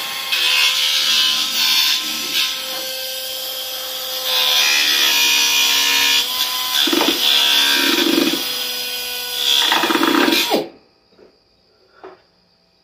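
Pneumatic cut-off tool's small abrasive wheel cutting into a Corvette's firewall, its high whine swelling and dipping as the disc bites and eases off. It stops abruptly about two seconds before the end, followed by a couple of faint knocks.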